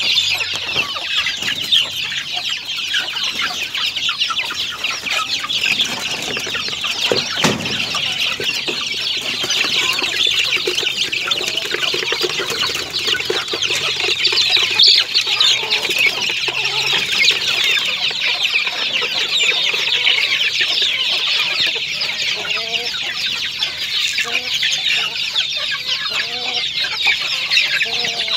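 Backyard chickens clucking over a dense, steady chorus of high-pitched chirping.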